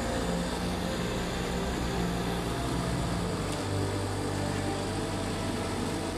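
Motor vehicle engine running steadily as a low, even hum, with a steady noise over it.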